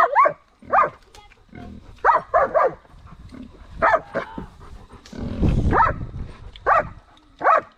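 Pigs giving short, high-pitched squealing grunts, about nine in all, some in quick runs of two or three. A burst of low rumbling noise comes a little after halfway.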